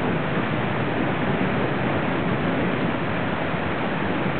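Heavy thunderstorm downpour: rain falling steadily and evenly.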